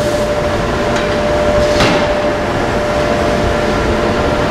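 Steady, loud drone of drop-forge shop machinery and furnace, with a steady hum running through it and one sharp metallic clank about two seconds in as the hot billet is handled with tongs.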